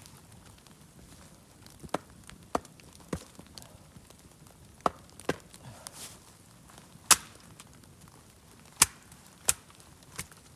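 Wood being chopped: about nine sharp, separate strikes at an uneven pace, the loudest about seven and nine seconds in.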